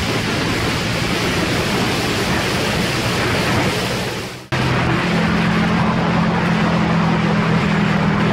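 Onboard sound of a Ducati Panigale's L-twin engine at speed, buried under heavy wind rush on the microphone, with the engine holding a steady note. About halfway through, the whole sound fades away for a moment and then cuts back in abruptly.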